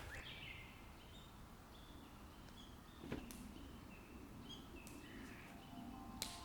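Quiet outdoor ambience with small birds chirping in short high notes, and two sharp clicks about three and six seconds in.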